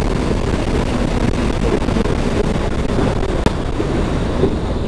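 Wind buffeting the microphone of a moving motorcycle, a steady rumbling roar with engine and road noise mixed in. One sharp click comes about three and a half seconds in.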